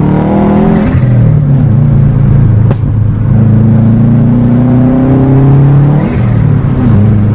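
2012 Subaru WRX's turbocharged flat-four revving up under boost twice. Each pull breaks off on lift-off, about a second in and again about six seconds in, into a short turbo flutter and hissing blow-off from the HKS blow-off valve, whose opening is delayed by a flow control valve on its vacuum line. A sharp click comes a little under three seconds in.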